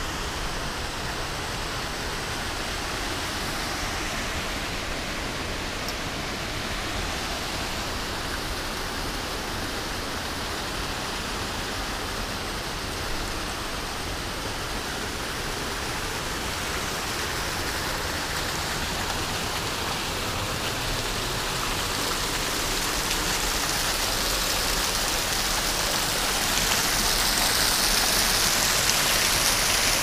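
Two small waterfalls pouring down a mossy rock face into a shallow pool: a steady rush and splash of falling water that grows louder and brighter over the last several seconds.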